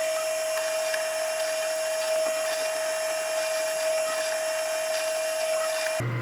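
Small electric drill running steadily with a high whine, boring rivet holes through leather, and cutting off suddenly near the end.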